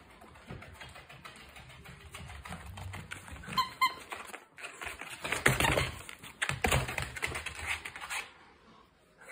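Miniature dachshund playing with a toy: a patter of quick clicks and knocks from its claws and paws on the floor, loudest about five and a half and nearly seven seconds in. A brief two-note squeak comes a little after three and a half seconds.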